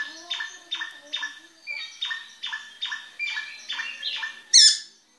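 Caged drongo (srigunting) singing a steady series of repeated, slightly falling notes, about two and a half a second. Near the end comes one louder, higher sweeping call, and then it stops.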